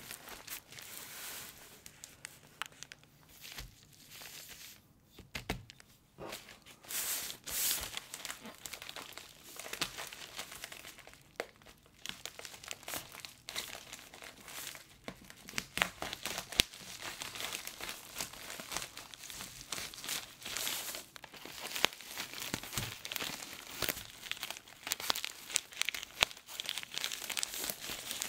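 Plastic poly mailer bag crinkling and rustling in the hands as it is held and turned over, with many sharp crackles.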